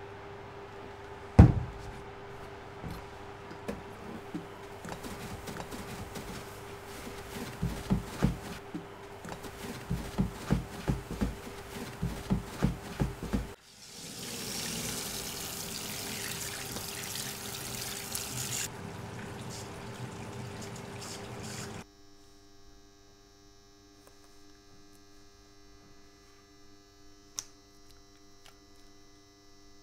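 A brush scrubbing powder over a copper plate in quick rhythmic strokes, about two or three a second, after a single sharp knock near the start. Then water runs with a bright hiss for a few seconds. After a sudden change, a steady electrical hum remains, with one click near the end.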